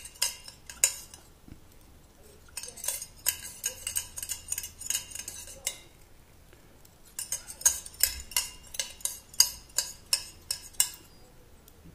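Light metallic clinking in quick runs of clicks, three spells in all: a thin stainless steel wire holder rattling against a steel saucepan as an anodized aluminium part is jiggled in the blue dye bath during the colouring stage.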